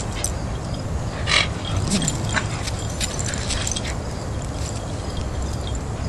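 Two Keeshond dogs playing: scattered short clicks and scuffles, the loudest about a second in, thinning out after about four seconds, over a steady low background noise.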